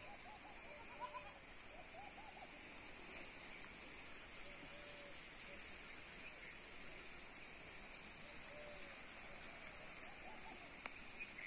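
Faint, short animal calls, singly or in twos and threes every second or two, over a steady background hiss.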